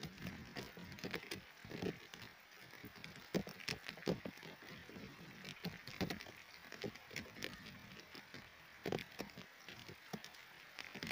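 Rain falling, with single drops ticking irregularly on nearby surfaces over a soft steady hiss.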